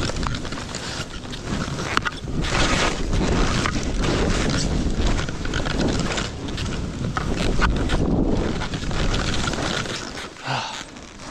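Skis slashing through deep powder snow in a run of turns, each turn a surge of rushing noise, with wind buffeting the microphone. The rush dies down about ten seconds in.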